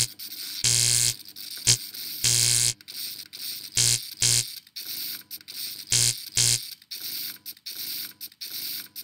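Electronic outro sound design: short hits, each a low thud with a bright hiss on top, several coming in pairs about half a second apart, over a faint crackly ticking bed.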